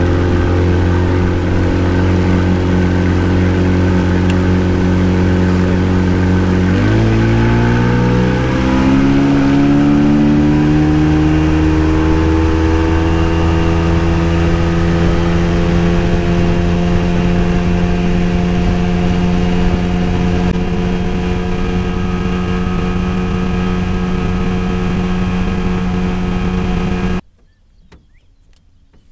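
Outboard motor of a bass boat running under way, its pitch climbing about a quarter of the way in as it speeds up, then holding steady. It cuts off abruptly near the end.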